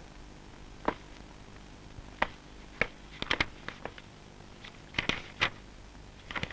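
Sparse short clicks and paper rustles of a cardboard file being opened and its pages turned, over a faint steady hiss.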